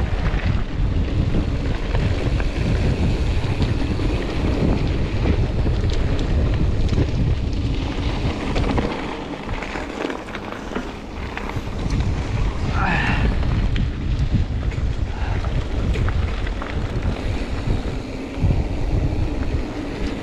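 Wind buffeting an action camera's microphone on a moving mountain bike, over the rumble and rattle of the bike rolling on a dirt track. It eases for a couple of seconds midway, and a brief high wavering sound comes through about two-thirds of the way in.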